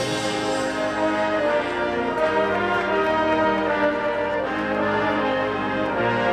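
High school marching band playing, with brass holding sustained chords that shift to new chords every couple of seconds.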